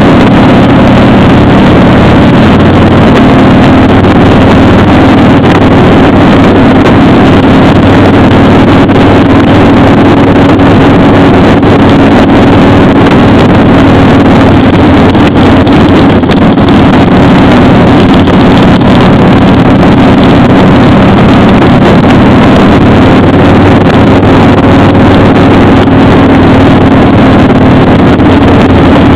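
Motorcycle engine running at a steady cruising speed, mixed with wind rushing over the microphone. The sound is loud and even.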